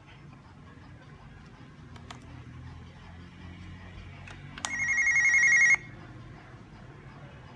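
Hikvision DS-KIS202 video door phone sounding its electronic call ring once for about a second, past the middle: a warbling ring that grows louder and cuts off abruptly, the signal that the door station's bell button has been pressed. Faint clicks come before it.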